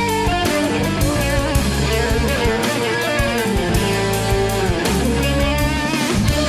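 Rock band music: electric guitar playing melodic lines that slide in pitch, over bass and a steady drum beat.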